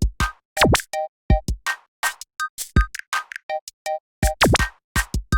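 Electronic background music: a choppy drum-machine beat with short stabbed synth notes. Two sweeping pitch glides come about half a second in and again near the end.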